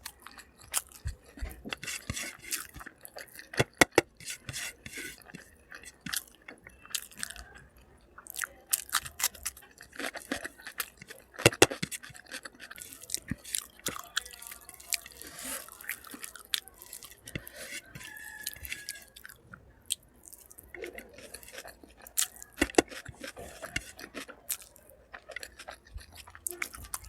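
Close-up sounds of a person eating: chewing with frequent irregular wet clicks and smacks of the mouth, and now and then a crunch.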